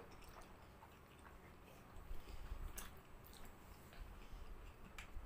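Faint chewing and mouth sounds of people eating instant noodles, with a few soft clicks.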